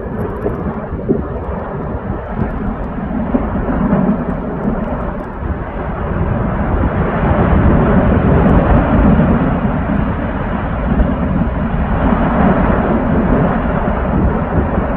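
Deep, continuous rumbling roar of the Fagradalsfjall volcanic eruption, swelling to its loudest around the middle and then easing slightly.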